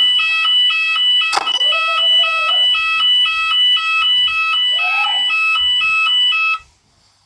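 Shop fire alarm voice-evacuation system sounding its alert tone, two high pitches alternating rapidly, between its recorded evacuation messages. The tone cuts off abruptly about six and a half seconds in, and a brief sharp click sounds about a second and a half in.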